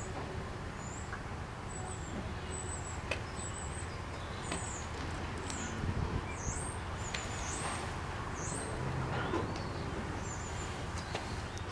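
Small birds chirping: a dozen or so short, high, thin calls, some swooping down and up, at irregular intervals over a steady low rumble.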